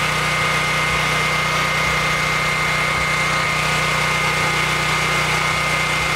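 Champion 8125/6500-watt Dual Fuel portable generator's single-cylinder engine running under a steady drone, with a steady high tone over it.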